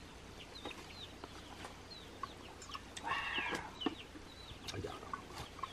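Chickens clucking, short calls scattered throughout with a louder run of calls about three seconds in.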